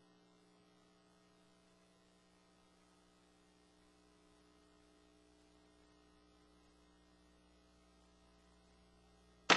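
Faint steady electrical mains hum, several steady tones at once, on an idle audio feed. A single sharp knock comes right at the very end.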